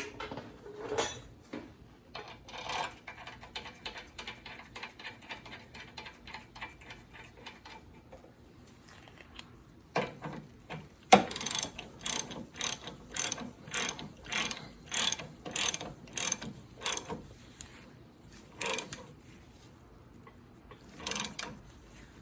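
Hand socket ratchet clicking as a bolt is tightened to clamp a sway-bar arm onto its splined shaft. A quick run of light clicks comes first, then louder clicks at about two a second, and a few single clicks near the end.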